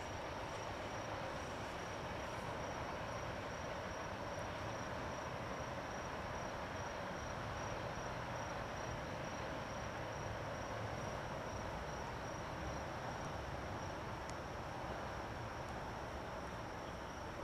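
Insects trilling steadily at a high pitch over the low rumble of a freight train of tank cars rolling away into the distance.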